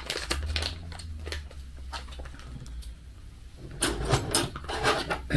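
A foil food pouch crinkles as the last of the gravy is squeezed out. Then a lightweight camping knife and fork are picked up off the table with a few light clicks and knocks, the loudest near the end, over a steady low hum.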